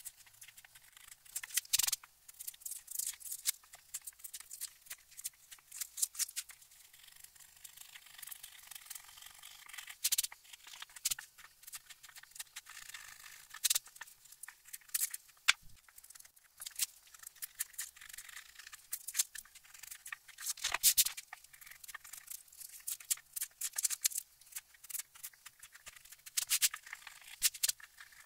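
Knife blade scraping and lifting dry pastedown paper off a book's cover board: irregular short scratchy strokes with paper crackle, a few louder than the rest.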